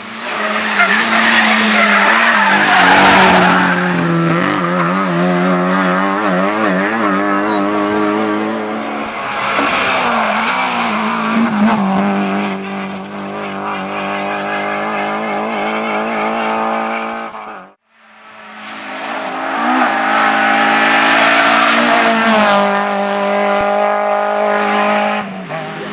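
Rally car engine at high revs, its pitch rising and falling with throttle and gear changes. About two-thirds of the way in the sound cuts out abruptly for a moment, then a rally car engine builds up again to high revs.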